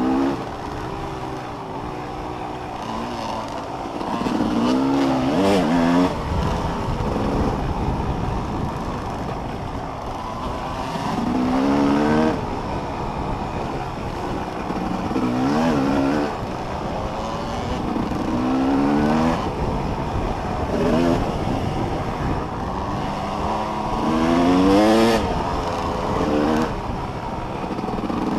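Off-road motorcycle engine revving hard under way, its pitch climbing again and again every few seconds as it accelerates through the gears.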